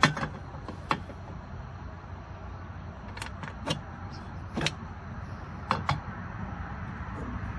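Scattered sharp metallic clicks and clinks of bolts and small hardware being handled and set on a metal anchor-mount plate, about eight in all and bunched near the middle, over a steady low background hum.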